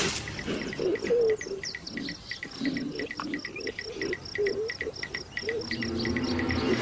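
Crickets chirping in a steady rapid pulse, about four to five chirps a second, with short low warbling calls in between.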